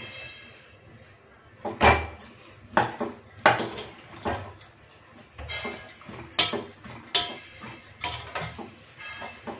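Thekua dough being kneaded by hand in a steel plate: irregular knocks and clatters, about one or two a second, as the dough is pressed and worked against the metal.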